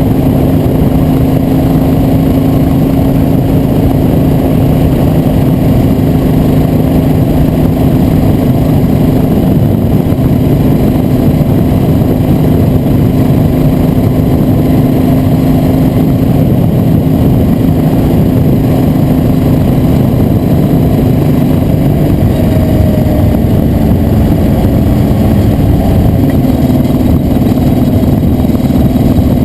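A vehicle engine running at a steady cruising speed, with heavy wind rumble on the microphone. The engine note wavers and dips about three-quarters of the way through, then steadies again.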